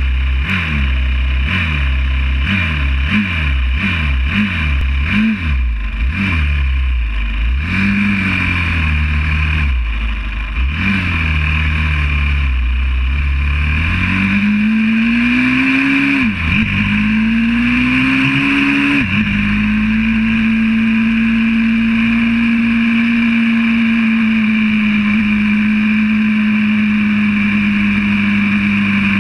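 Single-cylinder four-stroke engine of a YCF 125cc pit bike, heard from a camera mounted on the bike. It is blipped repeatedly at first, then accelerates through the gears with two upshifts, then holds steady high revs for the last third.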